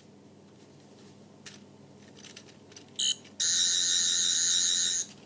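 Twelfth Doctor touch-control sonic screwdriver toy playing its electronic sound effect: a short blip about three seconds in, then a steady high warbling buzz for almost two seconds that cuts off near the end.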